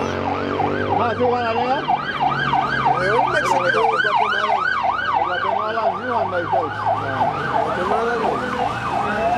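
Escort vehicle siren in fast yelp mode, sweeping up and down in pitch about three times a second, with a steady low engine hum under it that fades about seven seconds in.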